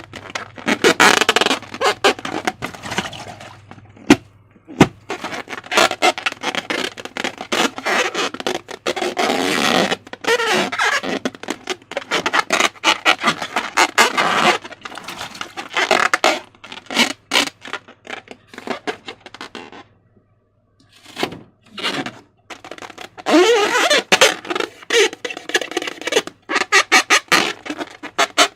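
Slime being squeezed and worked by hand, wet squelching with dense crackling pops in irregular runs and a short pause about two-thirds of the way through.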